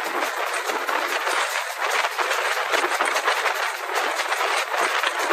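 Steam locomotive 4270, a GWR 4200-class 2-8-0 tank engine, running at speed, heard from beside it on the train: a steady rush of wind and running noise with a fast flutter running through it.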